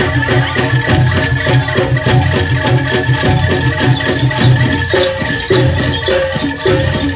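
Jaranan (kuda lumping) accompaniment music from a Javanese gamelan-style ensemble: a fast, steady rhythm of struck metal keys and gongs over deep drum beats, with a rattling jingle on top.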